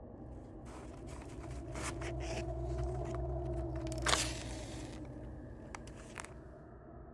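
Scratching and rustling of a matchbox and match, then a match struck with a sharp flare about four seconds in, the loudest sound, followed by a few lighter scrapes. A low steady hum runs underneath.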